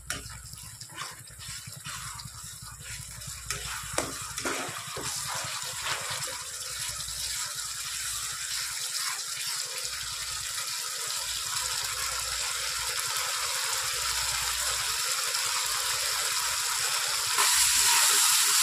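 Onion, ginger-garlic and ground-spice masala sizzling in oil in a non-stick kadai as it is fried and stirred with a spatula. The hiss grows steadily louder and steps up again near the end, with a few spatula scrapes and knocks in the first few seconds.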